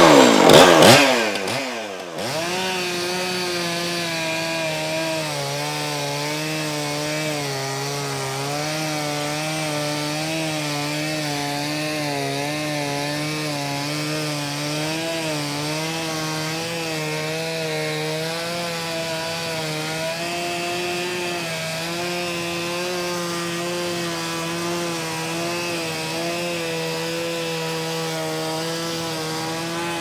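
Chainsaw on a chainsaw mill, with a steel ripping chain, sawing a one-inch board lengthwise from a log. It is loud and rough for the first two seconds, then settles into a steady engine note that wavers slightly as it cuts along.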